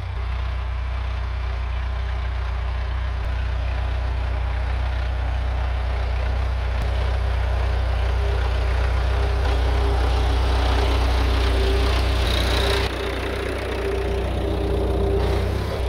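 Tractor engine running steadily while pulling a row hipper to form beds. A higher steady whine joins about halfway through, and the engine sound dips briefly near the end.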